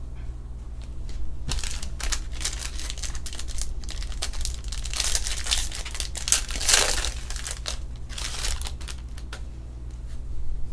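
Foil wrapper of a 2020 Topps Star Wars Masterwork trading-card pack being torn open and crinkled: irregular crackling that builds to its loudest a little past the middle, then dies away near the end. A steady low hum runs underneath.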